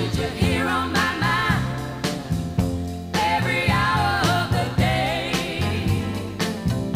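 Music: a song with a singing voice over a band with a steady beat.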